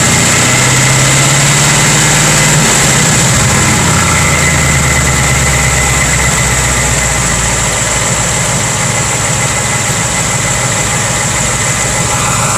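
2018 Mustang GT's 5.0 L V8 idling, heard from underneath the car; the idle settles lower about three seconds in, then holds steady. The owner is unsure whether a clanking noise from this engine is piston slap.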